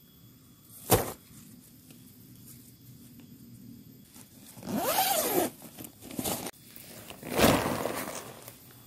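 A single thud about a second in, then the zipper of an Eiger tent's nylon carry bag being pulled open, with nylon rustling, in two long strokes as the tent is unpacked.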